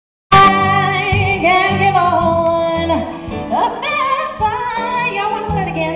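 A woman singing a show tune in full voice with vibrato over instrumental accompaniment, live; the sound starts abruptly just after the start.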